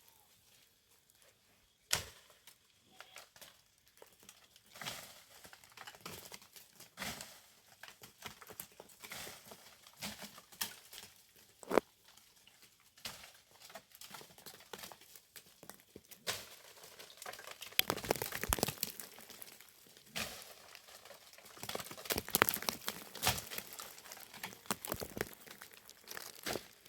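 Dry leaves and twigs rustling and crackling unevenly, with a few sharp clicks or snaps, such as come from handling or stepping through dry forest litter.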